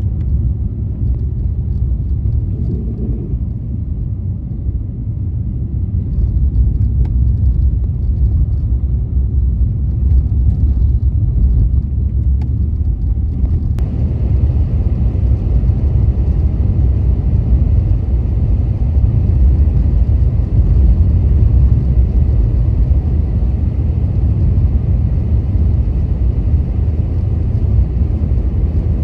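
Car driving on a snowy road: a steady low rumble of tyres and engine, with a higher hiss joining about fourteen seconds in.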